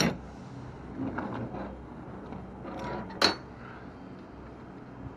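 Metal clicks and clanks of a lorry trailer's rear-door locking bars and handles being released and the doors swung open, with a sharp ringing clank about three seconds in. A steady low engine hum runs underneath.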